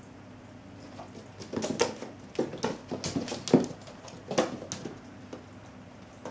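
Cats' paws thudding and claws scrabbling on a laminate floor as they pounce and run after a laser dot. The sounds come as a cluster of quick knocks and skids, from about a second and a half in to nearly five seconds in.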